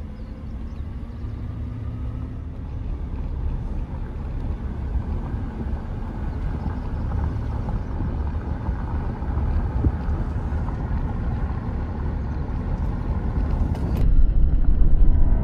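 Low, steady rumble of a vehicle driving, growing gradually louder, with a faint rising engine pitch in the first few seconds. The sound changes abruptly about fourteen seconds in.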